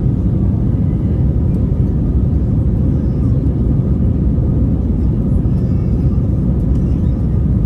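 Airbus A320 cabin noise: a loud, steady rumble of the jet engines and airflow heard from inside the cabin.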